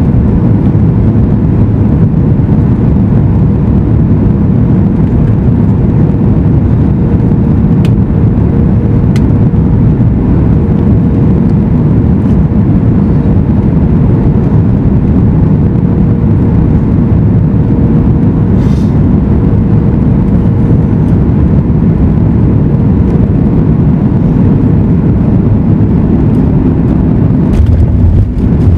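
Cabin noise of a Boeing 737 MAX 8 airliner: the steady low rush and drone of its CFM LEAP-1B engines and airflow, with a faint steady hum. About a second before the end a deeper, louder low rumble sets in.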